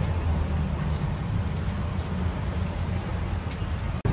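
Steady low rumble of background noise with a faint hiss above it, broken by a brief dropout near the end.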